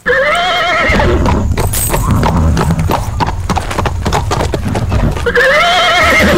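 A horse neighing twice, one wavering call about a second long at the start and another near the end, over a fast, steady clatter of hoofbeats.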